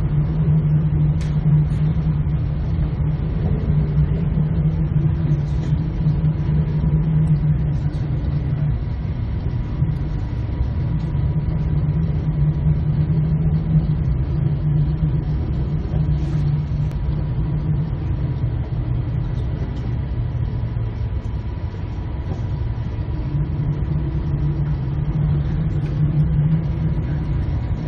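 Steady low rumble of an oil tanker's engine and machinery heard from inside the bridge, swelling and easing slightly, with a faint steady high hum.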